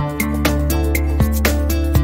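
Background music with a steady beat over a low bass line and held chords.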